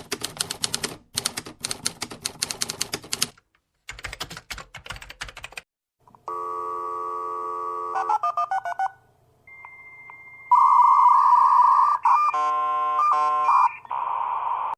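Stock sound effects played one after another: about five seconds of rapid keyboard-like typing clicks in two runs, then electronic telephone-style tones, a steady buzzing tone, fast beeps, a loud steady tone and a quick run of stepped beeps like a ringtone.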